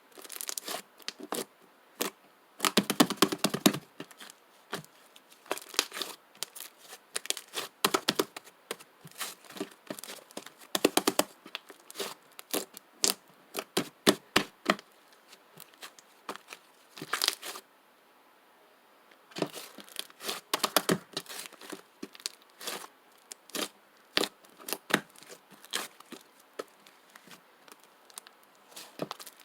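Soft slime being squeezed, poked and stretched by hand, giving clusters of sharp wet clicks and crackling pops, with one short pause past the middle.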